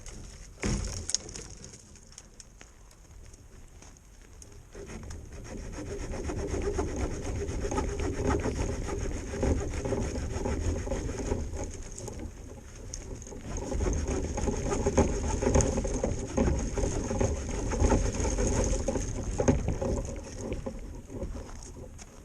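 Saw cutting through the dry wood of a downed tree for firewood: a rough, continuous rasping that starts about four seconds in and dies away near the end.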